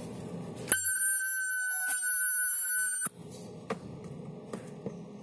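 Handheld ultrasonic spot-welding gun welding a plastic part: a steady high-pitched whine that starts abruptly under a second in and cuts off about two and a half seconds later. A few faint clicks follow.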